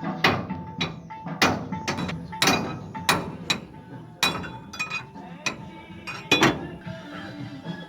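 Hammer striking metal about a dozen times at an uneven pace, each blow ringing briefly; two quick blows a little past six seconds in are the loudest.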